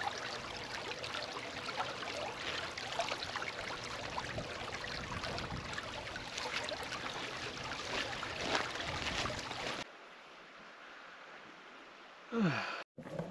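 A small moorland stream trickling and gurgling through a grassy channel. It cuts off abruptly about three quarters of the way through, leaving a faint hiss. Near the end there is one brief falling tone.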